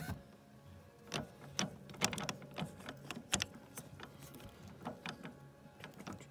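Irregular metal clicks and knocks, a dozen or so, as a pin is worked against the rat tail bracket and motor linkage of a La-Z-Boy power recliner to line it up, over a low steady hum.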